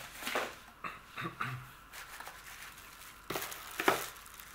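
Plastic bag and bubble wrap crinkling, with cardboard box flaps rustling, as a packaged spinning reel is handled and lifted out of its box. The sound comes in irregular bursts, the loudest crackle about four seconds in.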